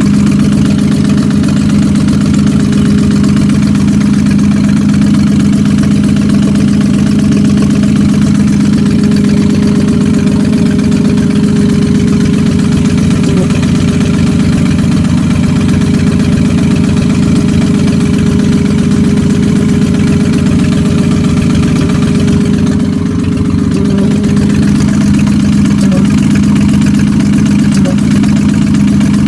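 Ford Mustang engine idling steadily with an even pulsing beat. It carries a noise that the owner cannot place as rod knock or an exhaust leak.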